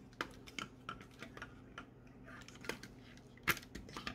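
Hard plastic toy parts clicking and tapping as the snap-on camera and telescope accessories are pulled off a Robocar Poli Helly transforming robot toy: a run of small irregular clicks, the sharpest about three and a half seconds in.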